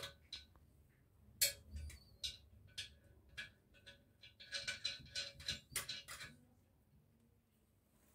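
Faint small clicks and taps of a washbasin wall fixing being fitted by hand: washers and a nut going onto the fixing bolt. A quicker run of clicks comes about four to six seconds in.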